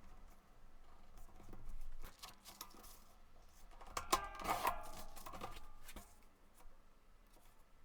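Paper being handled and folded on a desk: scattered light taps and rustles, with a louder crinkling stretch about four seconds in.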